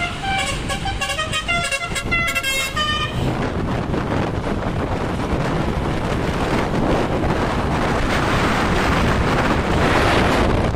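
Basuri telolet bus horn playing a quick tune of short multi-pitched notes for about three seconds, its pitch and tempo raised by a 1.3x speed-up. It gives way to a steady, loud rush of vehicle noise that grows a little louder toward the end.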